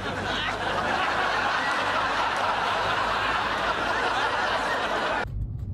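Studio audience laughter from a sitcom laugh track, swelling up and cutting off abruptly about five seconds in.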